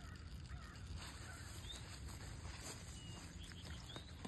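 Quiet outdoor ambience at a pond: a few short faint bird chirps over a low steady rumble.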